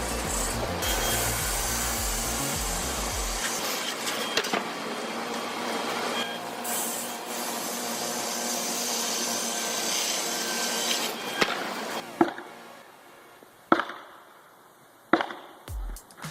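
A saw cutting through wood, a steady noise that stops about twelve seconds in, followed by a few sharp knocks. Background music with a low beat plays under the first few seconds.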